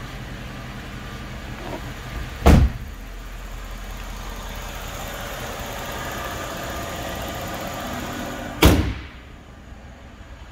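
Two heavy slams on a Mercedes-Benz ML550 SUV: the driver's door shutting about two and a half seconds in, and the hood shutting near the end, which leaves the sound duller afterwards. A steady low engine hum runs between them, fitting the 5.5-litre V8 idling.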